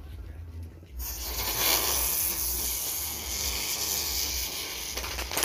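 Ground-spinner firecracker (petasan gangsing) igniting about a second in and hissing loudly as it sprays sparks, then a rapid string of sharp cracks near the end.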